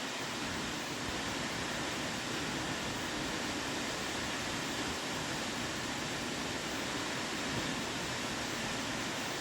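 Mt Damper Falls, a 74-metre waterfall, pouring: a steady, even rush of falling water.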